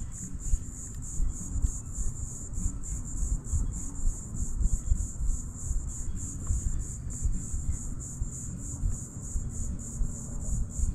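A steady high-pitched insect chorus, pulsing several times a second, over a low, uneven wind rumble on the microphone.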